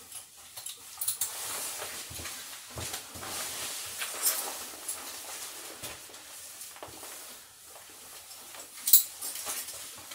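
A Labradoodle and a Golden Retriever, excited before a walk, moving about restlessly, with a few sharp clinks from their collar tags; the loudest clink comes about nine seconds in.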